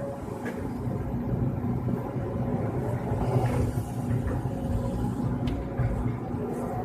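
Excavator's diesel engine running steadily while digging, with a few light knocks and a rising whine near the end.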